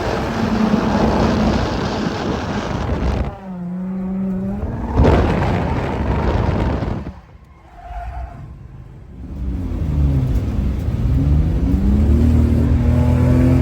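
A car drifting: its engine revs hard and its tyres skid. The sound changes abruptly several times, drops to a quieter stretch a little past halfway, then returns to engine revs rising and falling.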